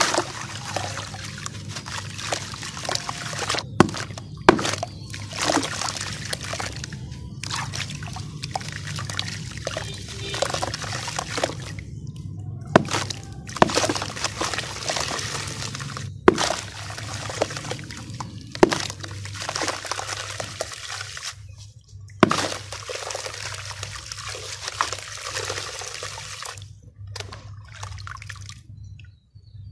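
Dry red dirt crumbling in the hands and pouring into a tub of water: a hissing trickle of grains hitting the water, with sharp splashes every few seconds as lumps drop in. A low steady hum runs underneath.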